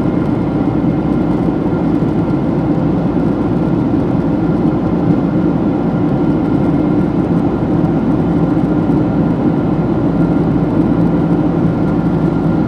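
Steady engine drone and airflow rush heard inside the cabin of a Boeing 767-300 in flight, from its GE CF6 turbofan engines, with a constant low hum and a faint whine over the noise.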